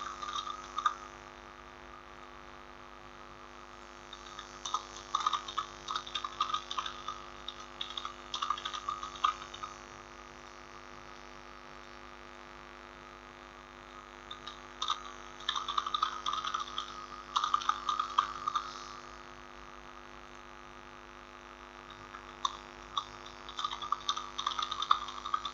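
Computer keyboard typing in several bursts of quick clicks, with pauses between them, over a steady electrical hum.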